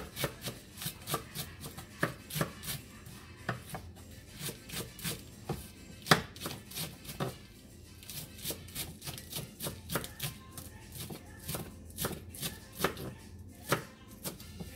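Kitchen knife chopping lettuce finely on a plastic cutting board: a steady run of crisp knife strikes, about three a second, with one sharper strike about six seconds in.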